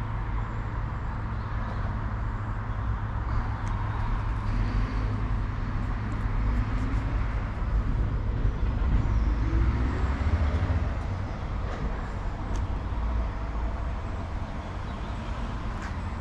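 Road traffic passing: a steady low rumble and hiss, swelling louder through the middle as a vehicle goes by, then easing off.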